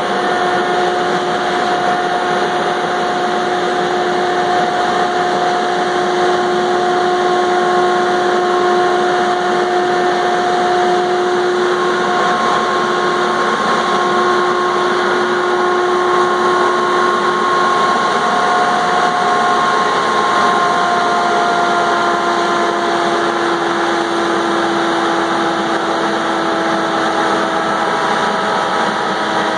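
Valmet 603S feller buncher's diesel engine running steadily, with a steady whine over the engine noise that sags a little in pitch in the second half.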